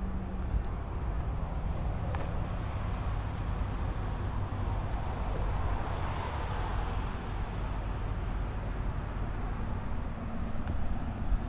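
Steady outdoor road-traffic background noise, swelling a little about six seconds in.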